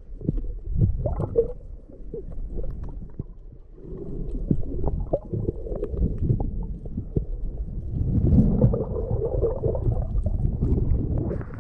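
Muffled underwater rumble and sloshing of water moving around a submerged action camera, with scattered small clicks and knocks. It swells louder about eight seconds in, as the camera nears the surface.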